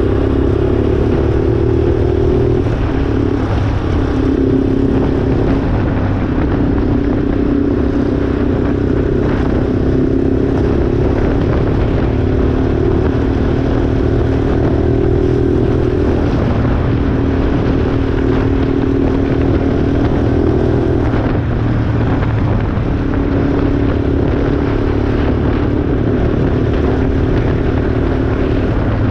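Yamaha Raptor 350 quad bike's single-cylinder four-stroke engine running steadily while riding along the road. Its note breaks and shifts briefly a few times, over a steady low rumble.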